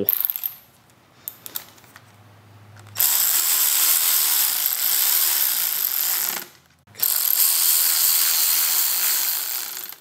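Cordless electric ratchet running twice, about three seconds each with a short break between, driving the clamp bolts of a motorcycle's clutch lever perch onto the handlebar. The bolts are only snugged up, not fully tightened. A few faint clicks of parts being handled come before it.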